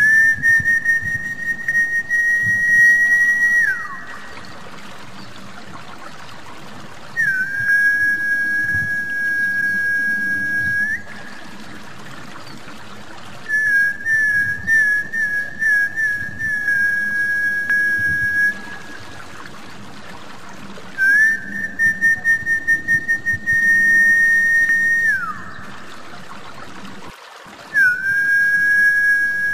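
Snakehead-luring whistle call: about five long, high, steady whistled notes a few seconds each, some opening with a quick warble and two ending in a falling slide. Water trickles steadily underneath.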